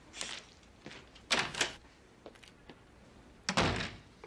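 A door being handled and then shut, with a couple of short clatters followed near the end by a heavy thud as it closes.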